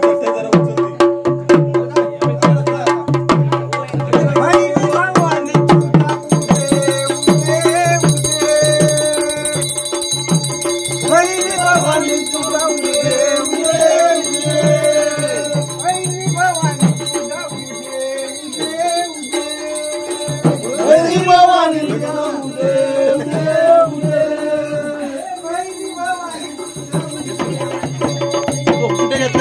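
Devotional Gondhal music: a drum beaten rapidly with sticks over a steady held drone, a hand bell ringing from about six seconds in, and voices singing a wavering devotional melody from about seven seconds on.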